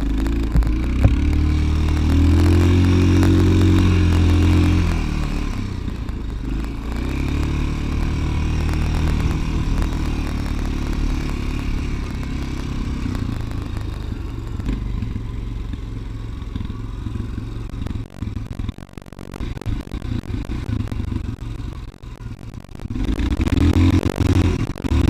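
Dirt bike engine heard while riding. It revs up about two seconds in and eases off around five seconds. It then runs on at part throttle, with the throttle blipped on and off near the end, before opening up again just before the end.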